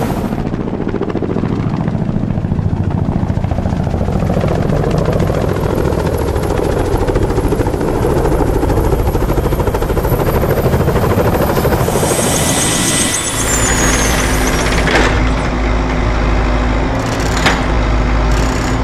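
Helicopter rotor sound, a dense fast chopping noise. About twelve seconds in, a high falling whistle joins it, followed by a lower steady rumble with a couple of sharp clicks.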